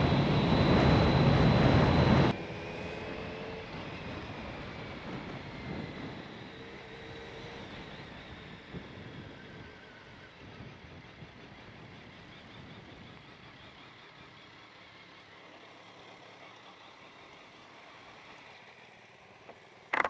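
Wind rush and engine of a BMW K1200GT motorcycle riding at speed in rain. About two seconds in it drops abruptly to a much quieter sound with a faint falling whine, fading steadily as the bike slows to a stop.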